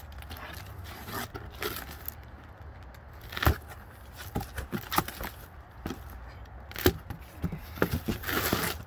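Box cutter slicing packing tape on a cardboard box, then the cardboard flaps being pulled open, with scattered sharp clicks, scrapes and a short rustle near the end.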